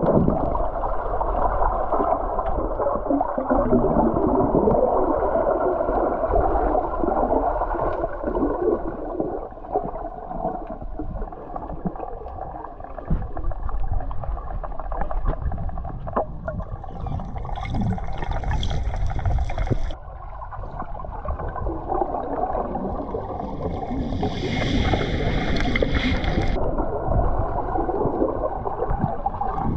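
Muffled underwater water noise, sloshing and bubbling, as picked up by a camera held under the surface. Twice, a brighter hiss joins for two or three seconds, about two-thirds of the way in and again near the end.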